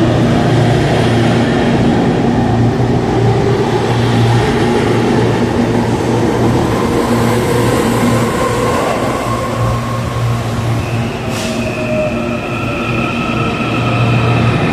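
CAF series 7000 electric multiple unit pulling slowly into a station platform, with a steady low motor hum. About eleven seconds in there is a brief hiss, then a steady high squeal sets in as it slows.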